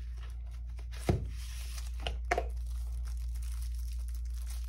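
A paperboard box being opened and handled: a sharp tap about a second in, then a rustling scrape with two small clicks around two seconds in as the bit holder comes out of its box.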